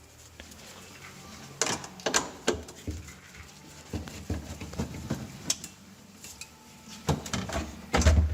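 Plastic parts and screws clicking and knocking in scattered bursts as the evaporator fan cover inside a refrigerator's fresh-food compartment is unscrewed and pried loose, with a heavier thump near the end.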